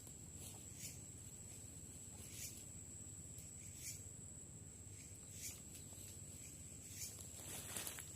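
Faint, brief rustling and scratching sounds, scattered about every second or two, over a steady high-pitched whine and a low hiss.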